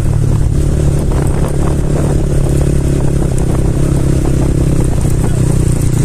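Small trail motorcycles' engines running while riding, a steady, unchanging engine note.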